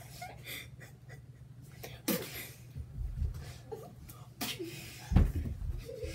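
Brief scattered giggles and breaths from children, with a few sudden deep bumps, the loudest just past five seconds, over a steady low hum.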